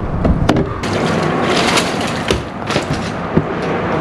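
Freshly landed largemouth bass flopping on the boat deck while being handled: a few sharp knocks and thumps over a steady rushing noise.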